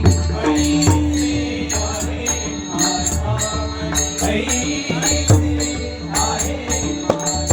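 Marathi bhajan accompaniment between sung lines: a harmonium holding a long note over pakhawaj drum strokes, with small hand cymbals (tal) keeping a quick, steady beat.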